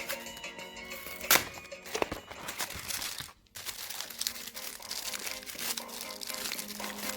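Chocolate bar and candy wrappers crinkling and tearing open, with a sharp loud crackle about a second in and a brief gap halfway through. Faint background music.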